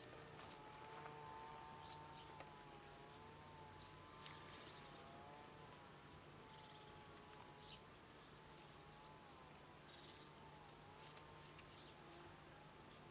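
Faint buzz of a flying insect, its pitch wavering up and down as it moves about, with a few faint ticks.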